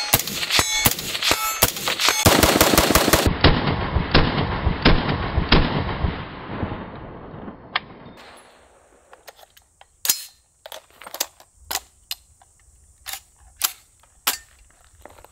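AR-15 rifle in .223 Wylde firing rapidly, several shots a second with metallic ringing at first, then a dense run of fire that fades out. From about eight seconds in, single shots come roughly two a second over the steady high buzz of cicadas.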